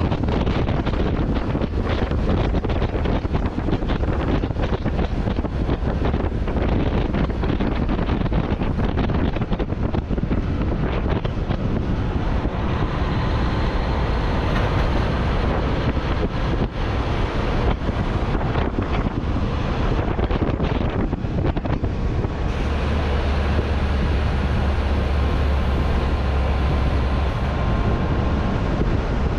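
Wind buffeting a microphone mounted outside on the cab roof of a moving tractor-trailer, over the low rumble of the truck's engine and tyres on the road. About three-quarters of the way through, the low rumble grows stronger and the hiss brighter for several seconds.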